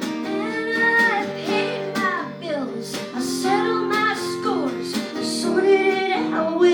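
Folk song: a woman's voice singing a sliding melody over acoustic guitar.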